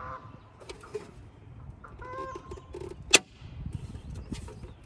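Plastic mirror bezel being pressed onto the RV side-mirror housing, snapping into place with one sharp click about three seconds in, amid smaller handling ticks. Short bird calls sound in the background.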